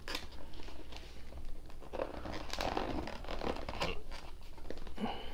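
Cardboard shipping box being pried and torn open by hand: crinkling and tearing of cardboard and packing tape, with scratchy scraping strokes.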